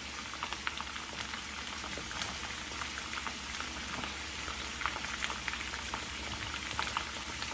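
Hot cooking oil sizzling steadily, with frequent small crackles and pops.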